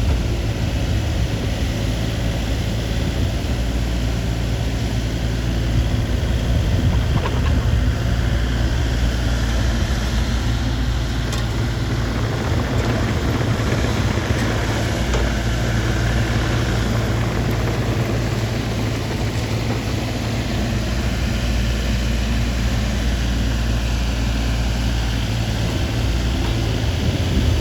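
An engine running steadily, with a constant low hum.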